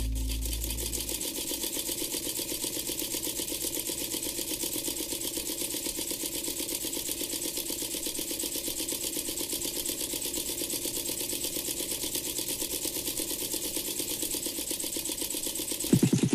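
Electric sewing machine running and stitching fabric with a fast, even clatter. It gets louder and deeper just before the end.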